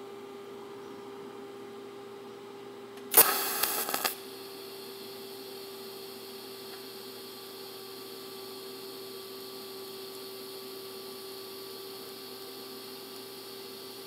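A TIG welder's arc striking with a loud crackling burst of about a second, about three seconds in, then the DC arc burning steadily with a faint hiss over a constant background hum, as titanium and 304 stainless steel are fused.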